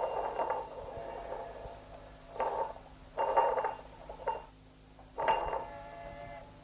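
A glass jar scraping across a hard tabletop in several short jerks, each a burst of grating with a ringing glassy tone.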